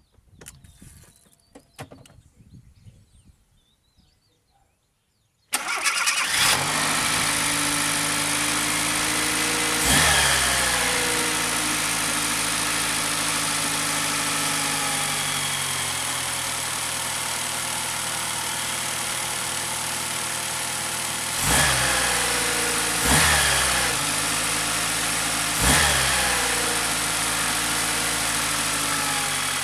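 Fiat Panda 900ie's four-cylinder petrol engine starting about five seconds in and settling down from a fast idle. It is then revved briefly four times, the pitch falling back to idle after each blip. This is a test run after the intake hose was repaired.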